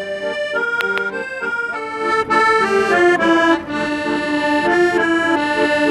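Accordion playing a melody over held chords, with notes changing several times a second.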